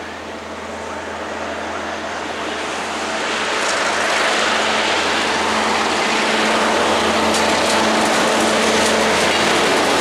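Freight train approaching and drawing close, led by an OSE class 220 (Adtranz DE2000) diesel-electric locomotive with an MLW diesel behind. The engines' steady drone grows louder over the first four seconds, and a few clicks from the wheels on the rails come in the last seconds.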